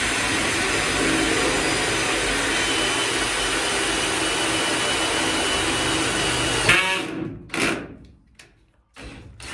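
Cordless drill running steadily under load as the bit works through a timber batten into the boat's steel hull framing. It stops about seven seconds in, followed by a couple of brief trigger bursts.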